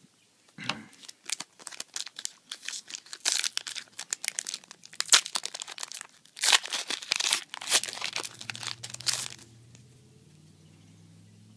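A foil Yu-Gi-Oh booster pack wrapper being torn open and crinkled by hand: a run of sharp, irregular crackling rips lasting several seconds.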